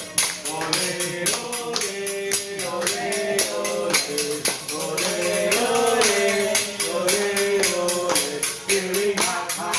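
Upbeat music with singing over a fast, even metallic beat of about four strikes a second.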